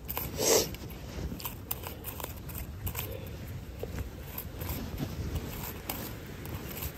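A hand sickle scraping and cutting into damp soil and weeds, with irregular small crunches and ticks. A brief louder sound comes about half a second in.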